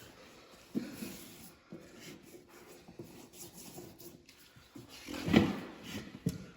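Scattered knocks and scrapes of steel tire bars working a tube-type implement tire onto its rim by hand, with one much louder short sound a little past five seconds in.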